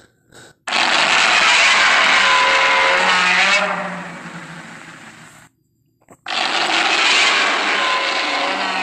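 Godzilla's roar from the 1954 film, the sound effect made by rubbing a resin-coated glove along a double bass string and slowing the recording down: two long, harsh, screeching roars. The first starts just under a second in and fades over about five seconds. The second starts about six seconds in.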